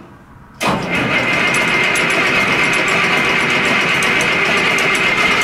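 Six-cylinder diesel tractor engine starting up about half a second in, then running steadily.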